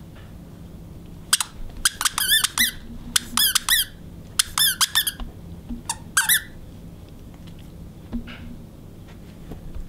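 Squeaker in a plush football dog toy squeaking as a dog chews it: quick runs of two or three squeaks, repeated several times over about five seconds, then a faint one near the end.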